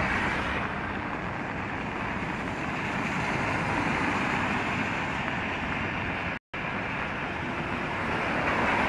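Steady rush of heavy rain and wind on a phone microphone held under an umbrella. A car's tyres hiss through standing water as it passes close by near the start. The sound cuts out completely for a moment about six and a half seconds in.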